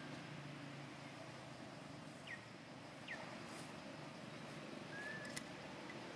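Quiet outdoor ambience: a steady faint hiss with two short, high chirps falling in pitch, a little under a second apart, then a brief whistle and a single sharp click near the end.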